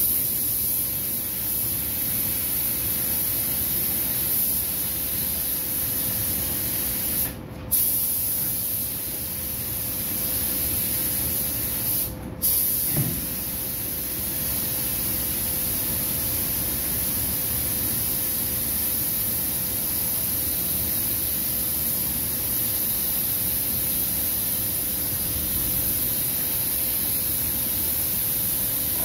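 Compressed-air gravity-feed paint spray gun hissing steadily as car body panels are sprayed, the air cutting off briefly twice, about seven and twelve seconds in, as the trigger is released. A steady hum runs underneath.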